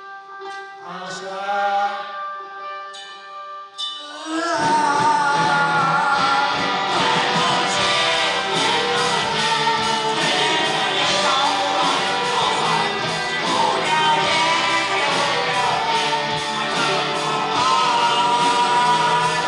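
Live rock band music with a male voice singing. A few sparse held notes open it, then the full band comes in loudly with a steady beat about four seconds in.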